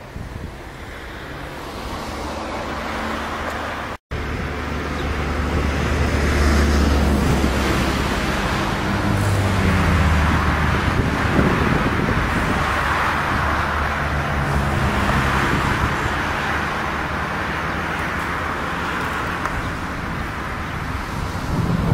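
Wind on the microphone for the first few seconds. After a brief dropout, steady road traffic noise follows, with the low hum of car engines going by.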